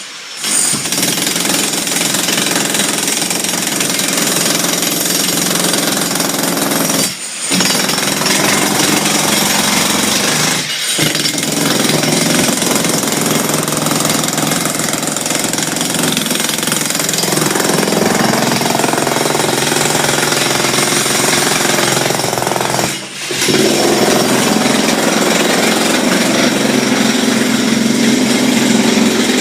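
A jackhammer-type power hammer running continuously, in the way a slab is broken out to reach a drain. It stops briefly three times, about 7, 11 and 23 seconds in.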